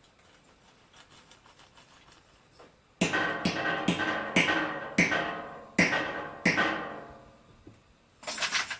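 A home-welded metal skimming tool knocked repeatedly against a bucket to shake out wheel-weight clips and molten lead: about seven ringing metal clangs at uneven intervals, each fading away, starting about three seconds in. A short hissing burst near the end.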